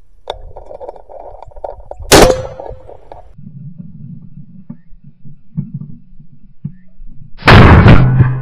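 Two shotgun shots: a sharp report about two seconds in, and a longer, louder blast near the end.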